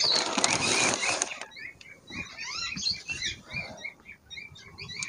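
A second and a half of loud rustling, then many short, rising, squeaky chirps from small cage birds in the aviary, repeating several times a second.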